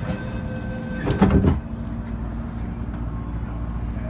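Sliding passenger doors of an MTR East Rail Line MLR train shutting, a brief rattling clunk about a second in, over the steady low hum of the stopped train. A steady high tone cuts off as the doors close.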